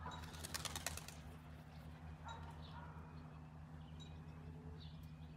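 A pigeon's wings flapping in a quick run of claps about half a second in, then a few faint high bird chirps over a steady low hum.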